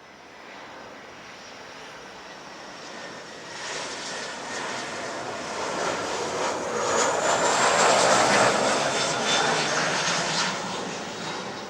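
Jet engines of a Boeing 737-500 on final approach, CFM56 turbofans. The roar builds as the airliner comes nearer, is loudest about eight seconds in, then starts to fade as it passes.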